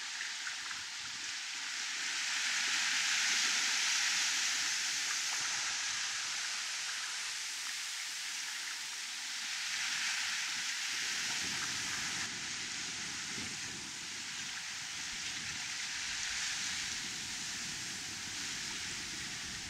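Sea water rushing and hissing past a sailing yacht's hull as it moves under sail, swelling and easing in slow surges every six or seven seconds as the waves pass. A lower rumble joins in during the second half.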